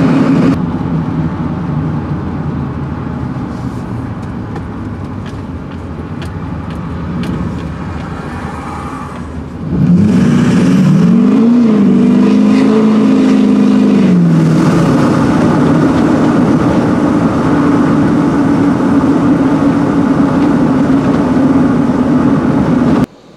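Duramax diesel pickup heard from inside the cab while driving: a steady engine hum with road noise. About ten seconds in it gets louder as the engine pulls harder, its pitch rising, dipping once and rising again before falling back to a steady cruise.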